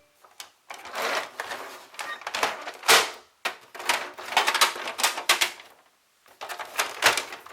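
Hard plastic clicking and rattling of a Tomica toy playset being handled, in short clattering runs with brief pauses, and one sharper click about three seconds in.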